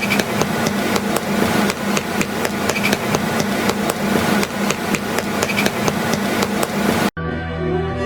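Rapid, irregular knocking strikes, several a second, like hammering, over a steady low hum. They cut off abruptly about seven seconds in, and music takes over.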